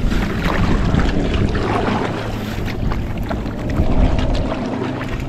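Sea kayak being paddled through marsh grass: paddle strokes in the water and reed stems brushing and crackling along the hull, over wind on the microphone.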